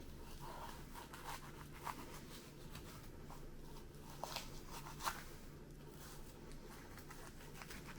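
Knife cutting the second breast off a partly frozen whole chicken: faint scraping and slicing with a few small sharp clicks, the loudest about five seconds in.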